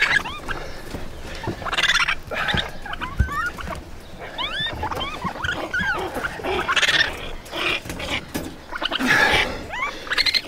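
Baby raccoon kits crying: many short, high, rising chirps, broken by louder harsh squeals about two, seven and nine seconds in.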